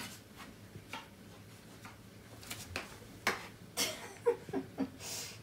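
Two small white dogs scuffling over a toy: faint scattered clicks and scuffling, with a few sharper clicks about three to four seconds in.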